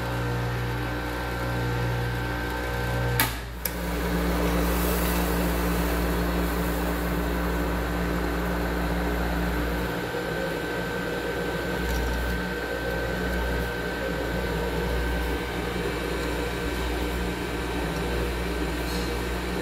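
Agmac colloid-mill nut-butter emulsifier running steadily, its electric motor humming as it grinds toasted hulled sesame into paste. A sharp click about three seconds in briefly interrupts the hum before it resumes.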